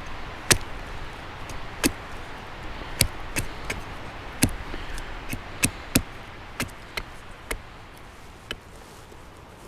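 A series of about a dozen sharp knocks and clicks at an uneven pace, spaced roughly half a second to a second apart and thinning out near the end, over a faint steady background hiss.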